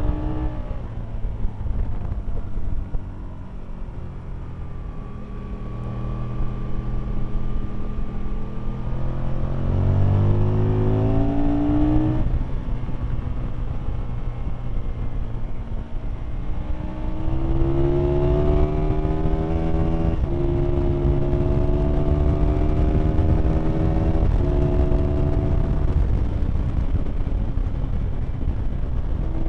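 Aprilia Tuono motorcycle engine heard from on board at speed: it runs up through the revs and shifts up several times (the pitch climbs, then steps down), backs off between runs, under a constant rush of wind.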